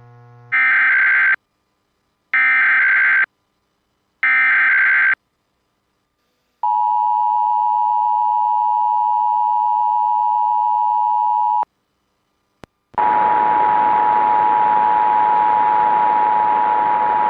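Emergency Alert System alert as received over AM radio: three short, identical bursts of SAME header data warble, then the two-tone EAS attention signal held steady for about five seconds. After a single click, the attention tone sounds again under heavy static hiss.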